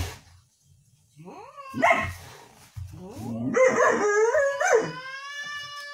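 Husky-type dog crying out in a string of short yelps and whines that rise and fall, ending in one long, steady cry.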